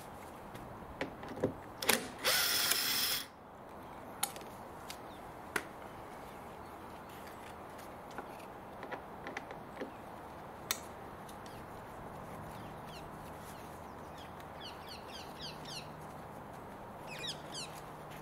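A screwdriver bit working at a small plastic cover on a car's door trim panel: scattered clicks and knocks, a loud rasp lasting about a second, two seconds in, then short runs of quick clicking in the second half.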